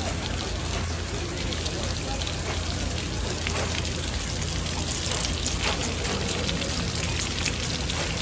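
Water pouring from an overhead pipe onto a wet wooden cutting board, a steady splashing patter, with a low steady hum underneath.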